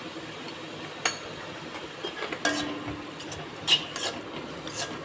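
A steel slotted spatula stirring onions and tomatoes in an iron kadai, scraping and clinking against the pan in scattered strokes.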